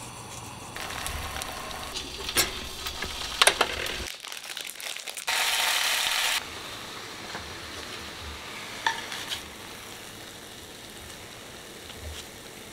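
Egg and sliced deli meat sizzling as they fry in butter in a nonstick pan. The sizzle is steady, with a few light clicks, and it turns louder for about a second near the middle.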